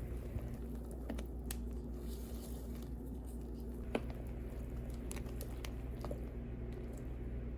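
Soft kitchen handling sounds of baking prep, squishing and crinkling, with scattered light taps and clicks, the sharpest about four seconds in, over a steady low hum.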